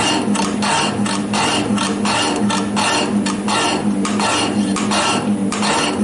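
Metal shaper cutting a metal workpiece: a regular rasp of the tool on each stroke of the ram, a few times a second, over the steady hum of the machine's motor.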